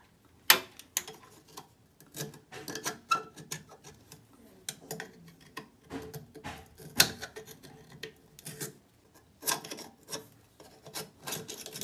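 Flat-head screwdriver scraping and knocking against a tight metal fixing ring on a basin faucet, working to turn it loose: irregular scrapes and clicks, the sharpest about half a second in.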